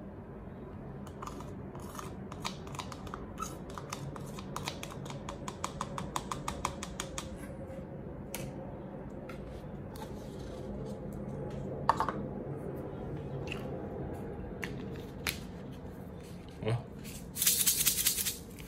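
Many fine crackles and ticks from a glass bottle packed with dry millet as freshly poured liquor soaks down through the grains, thinning out after about nine seconds. Near the end, a loud burst of about a second of rattling and sloshing as the bottle of wet millet is shaken.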